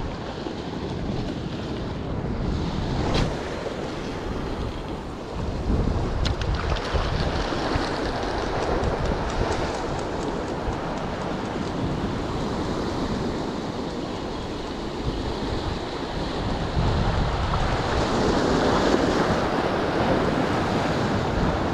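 Ocean waves washing against rocks, a steady surf noise, with wind buffeting the microphone.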